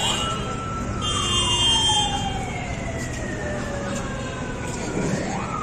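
A siren winds up quickly, holds its pitch for about a second, then slowly falls in pitch over several seconds, and winds up again near the end. A short, steady high tone sounds over it between about one and two seconds in.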